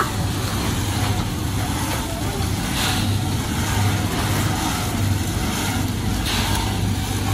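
Automatic drum peanut roaster running with a steady low hum while roasted peanuts pour out of its rotating drum into a metal tray. Two brief louder rushes, about three seconds in and again near six and a half seconds, come as scoopfuls of peanuts are shovelled and tipped into a jute sack.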